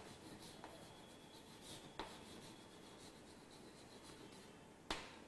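Chalk writing faintly on a blackboard: soft scratching strokes, with a light tap about two seconds in and a sharper tap near the end.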